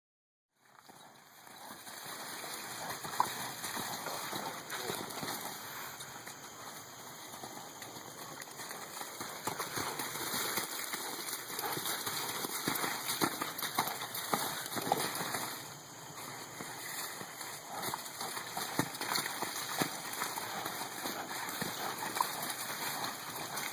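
A horse moving about, its hooves knocking irregularly, over steady background noise.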